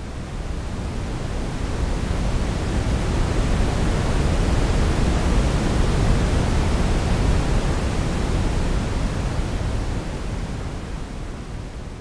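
Simulated ocean wave made from shaped noise: a rushing sound that slowly swells to a peak about halfway through, then ebbs away again.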